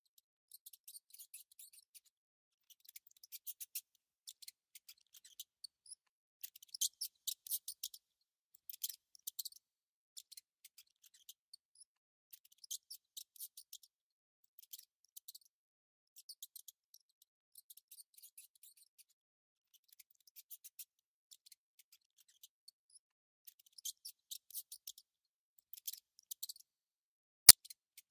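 A mouse gnawing on food: rapid, high-pitched clicking in short bursts with pauses between, and one sharp, louder click near the end.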